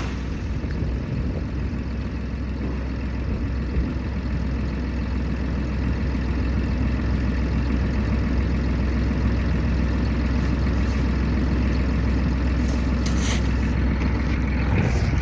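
Chainsaw engine idling steadily, with a few light knocks near the end.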